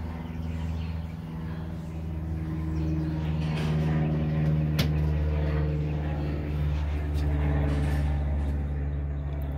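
A steady low mechanical hum, like a running motor or engine, swelling louder through the middle, with a single sharp click about five seconds in.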